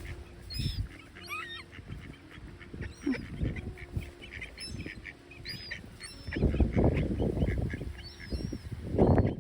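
Seagulls and other water birds calling again and again in short, high cries. Strong wind buffets the microphone in two loud low gusts, about six and nine seconds in.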